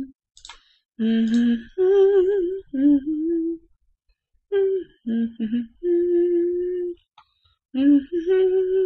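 A person humming a tune to themselves, in short phrases of bending and held notes with brief pauses between them.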